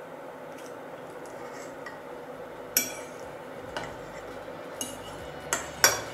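A metal fork clinking against a ceramic plate while cutting into a slice of cherry pie: about five sharp clinks in the second half, the loudest near the end, over a faint steady background hiss.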